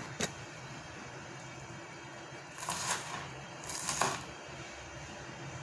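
Kitchen handling noises: a sharp click just after the start, then two brief scraping, rustling sounds about a second apart near the middle, over a low steady rumble.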